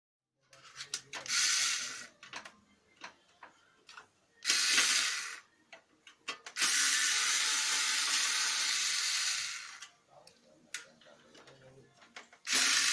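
Lexmark X364dn laser printer's drive mechanism running in bursts with clicks in between. It makes a rasping, ratchet-like grinding noise, a fault the owner finally traced to the duplex assembly. There are four bursts of running, the longest lasting about three seconds, the last starting near the end.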